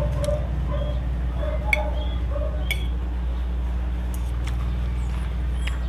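Metal spoon and fork clinking and scraping against a ceramic plate, a few separate clinks, over a steady low hum.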